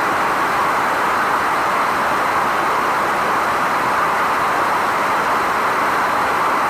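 Steady, loud rush of air from dryer vent cleaning equipment pulling air through the vent line, with no change in pitch or level.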